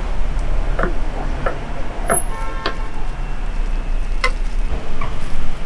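Scattered short knocks and clicks, about seven at uneven spacing, over a steady low hum, with a brief ringing clink a little after two seconds in.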